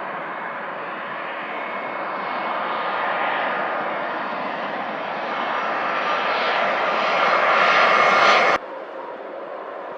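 Jet airliner engines growing steadily louder as the aircraft nears, with a faint whine over the rush. The sound cuts off abruptly about eight and a half seconds in, leaving a quieter steady rush.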